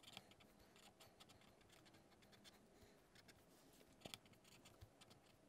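Faint scratching of a pen writing on notebook paper, with a small tap about four seconds in.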